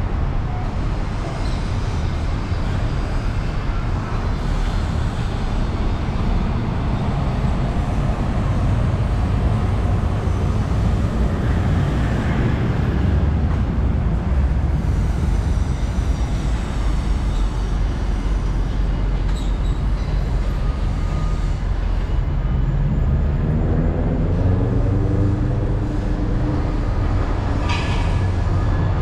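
Traffic passing on a busy multi-lane city road, a steady rumble. About three-quarters of the way through, one vehicle's engine or motor rises in pitch as it accelerates away.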